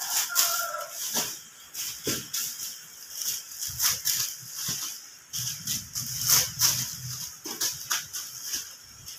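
Loaves of bread and dividers being handled and stacked into a basket: rustling and crinkling with many small taps, with chickens calling in the background.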